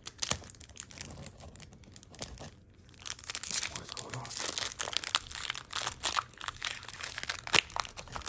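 Foil booster-pack wrapper crinkling and tearing as it is worked open by hand: sparse soft crackles at first, then dense, louder crinkling from about three seconds in.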